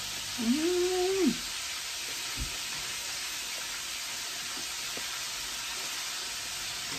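Swai fish fillets frying in hot oil, a steady sizzle. About half a second in, a single hummed "mmm" of someone tasting the fried fish, with a soft thump a little later.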